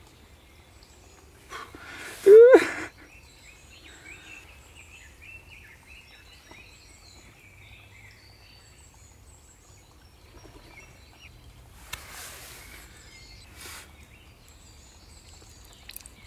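A man sucking hard on a straw water filter that will not draw, because a rock has blocked its intake. A short grunt about two seconds in is the loudest sound, and two brief hissing breaths or sucks come near the end. Faint birdsong sounds in the background.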